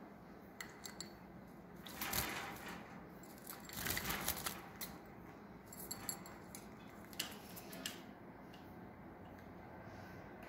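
Green-cheeked conure bathing in a shallow dish of water: two short bursts of splashing and wing-fluttering, about two seconds in and again around four seconds, with scattered light clicks and taps against the dish and cage.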